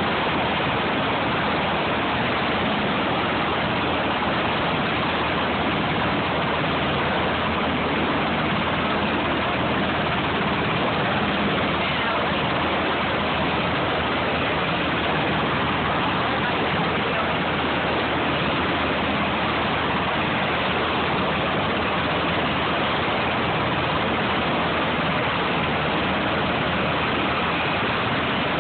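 Helicopter running on the ground while it powers up for takeoff: a loud, steady rush of engine and rotor noise with a low hum underneath.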